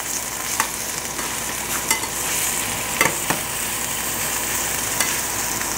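Steak searing in hot beef tallow in a frying pan, a steady sizzle, with about five sharp clicks of metal tongs against the pan as the steak is turned to its second side.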